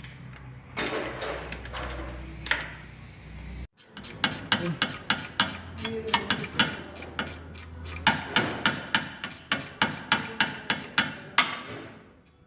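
Hand tool worked against metal on the car during the clutch job: after a cut, a fast, even run of sharp rasping strokes, about four a second, that stops shortly before the end.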